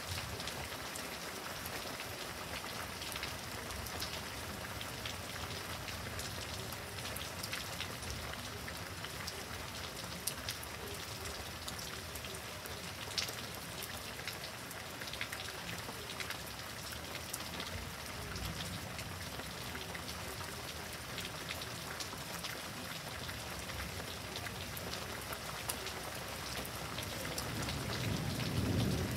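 Steady heavy rain from a thunderstorm, with many individual drops tapping on surfaces. A low rumble swells near the end.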